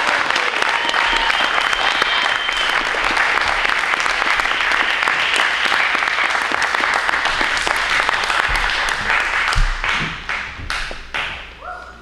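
Audience applauding in a large hall: dense applause that thins out to scattered claps after about nine seconds and dies away near the end.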